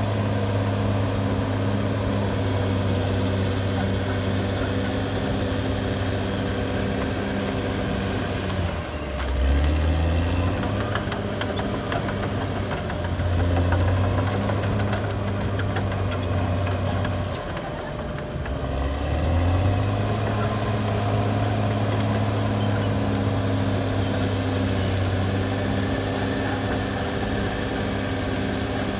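Caterpillar D6R XL bulldozer's diesel engine running under load. Its pitch drops and recovers twice, about nine and eighteen seconds in. Short high squeaks and a few sharp clanks come through.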